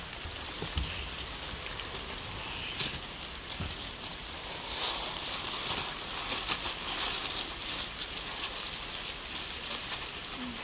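Rice being washed by hand in a pot of water: a crackly swishing of wet grains, louder in the middle, with a few knocks in the first few seconds.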